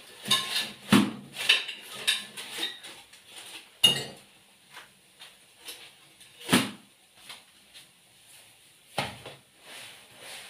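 Kitchen dishes and utensils clinking and knocking: a flurry of clinks in the first few seconds, then single knocks a few seconds apart.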